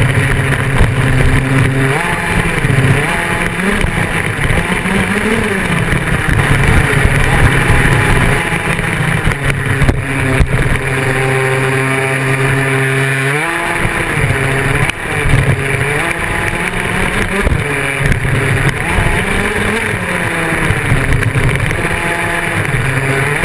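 Small two-stroke engine of a radio-controlled off-road buggy, heard from on board, revving up and down as it drives. It holds a steady idle for a few seconds past the middle, then revs up again.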